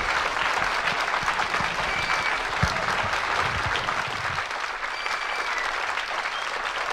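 Live audience applauding, with a few low thumps under the clapping in the first half.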